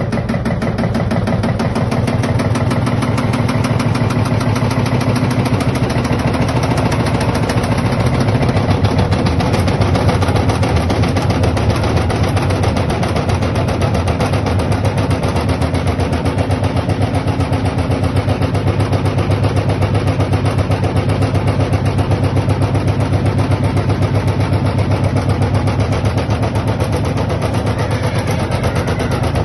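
LG washing machine running with a rapid, even rattle over a steady low hum.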